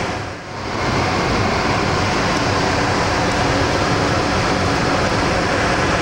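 Loud, steady rushing noise like moving air, swelling up within the first second and then holding even, with no clicks or knocks.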